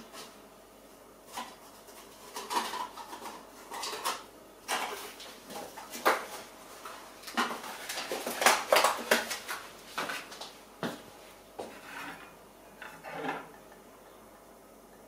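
Philips capsule coffee machine spluttering at the end of a brew, with irregular spits of air and coffee into a glass mug, busiest about halfway through. Near the end the glass mug is lifted off the plastic drip tray with a light knock.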